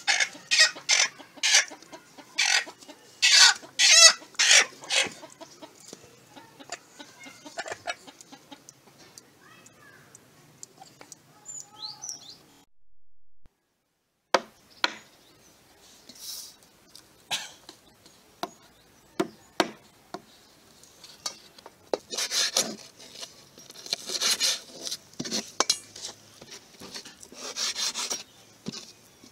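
A hen held upside down by its legs squawks and cackles in a fast run of loud calls over the first five seconds, then calls more quietly and sparsely. About halfway through, sharp irregular knocks begin: a heavy knife chopping chicken pieces on a board.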